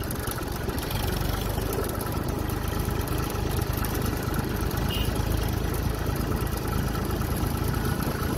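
Tractor's diesel engine running steadily, a little louder from about a second in.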